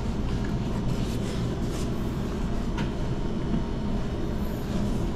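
Steady low background rumble, with a few faint short clicks.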